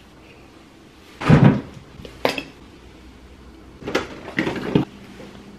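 Refrigerator being opened and searched: a dull thump about a second in, a sharp click, then a cluster of knocks and rattles near the end as items inside are handled.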